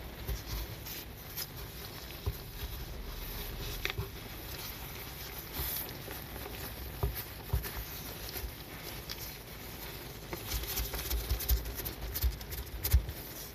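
Wet patter and crackle of soapy foam and water as a soaked miniature carpet is rolled up and pressed down by gloved hands, with quick clicks that come thicker and louder in the last few seconds.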